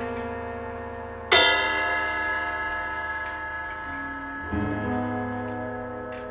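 Guitar riff played slowly: a chord struck about a second in rings out and fades, with single notes picked before and after it.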